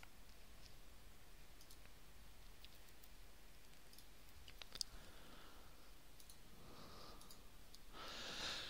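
Faint room tone with a few light computer mouse clicks, one sharper click about halfway through.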